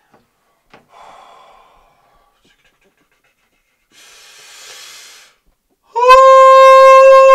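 A man draws a long, loud breath in, then belts out one loud held note of about a second and a half, its pitch dropping as it breaks off.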